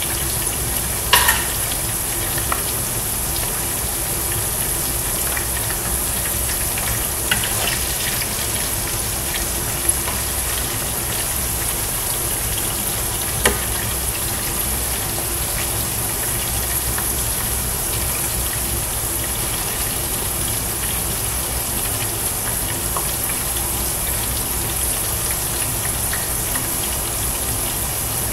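Hot oil sizzling steadily in a deep pot as french fries deep-fry, with a few sharp clicks of a metal utensil against the pot.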